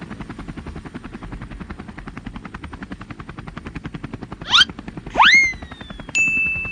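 Cartoon helicopter rotor chopping steadily in rapid beats. Near the end come cartoon sound effects: a quick rising zip, a sliding swoop, then a held high ding.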